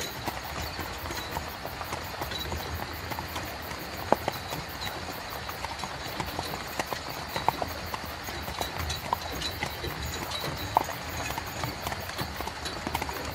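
Horse-drawn carriage on the move: a horse's hooves clip-clopping in irregular knocks over a steady rolling noise from the carriage.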